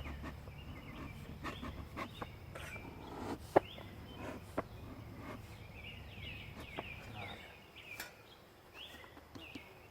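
Small birds chirping repeatedly, with a few sharp clicks and knocks as the wooden hive lid and frames are handled, the loudest about three and a half seconds in. A low rumble fades out about seven seconds in.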